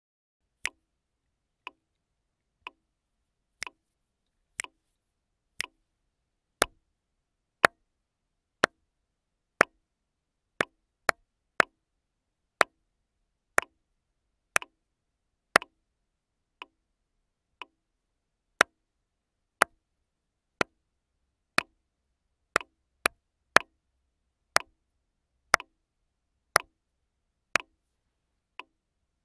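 Sharp, short claps on a steady beat of about one a second, in a two-part clapping rhythm with a few extra strokes falling between the beats. The strokes vary in loudness, and some come in quick pairs.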